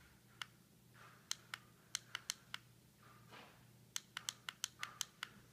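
Small plastic side buttons of a Spy Gear Tri-Optics Video Watch clicking as they are pressed again and again to step the clock's minutes: scattered single clicks at first, then a quick run of about five clicks a second near the end.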